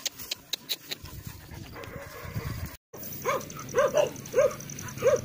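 A dog barking in the second half, about five short barks roughly half a second apart, with a thin steady high-pitched hum behind them.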